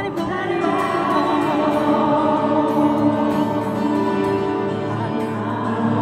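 A woman singing with an acoustic guitar, amplified through a stadium PA, her held notes echoing heavily around the empty stands.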